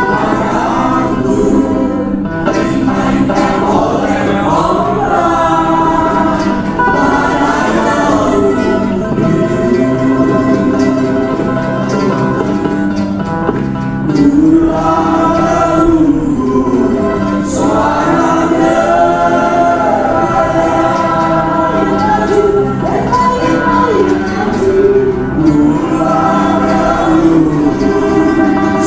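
Background music with singing voices over a steady accompaniment.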